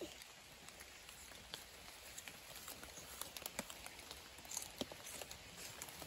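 Light rain pattering: scattered soft ticks of drops at irregular times over a faint steady hiss.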